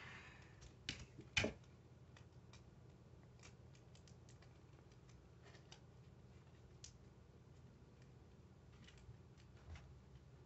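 Paper being handled and folded by hand, mostly faint: two sharper crinkles or taps about a second in, then scattered soft clicks.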